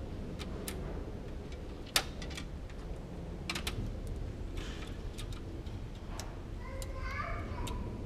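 Scattered clicks and light knocks of plastic parts and latches being handled inside the open front of a Xerox WorkCentre copier, with one sharp click about two seconds in and a short pitched rubbing sound near the end.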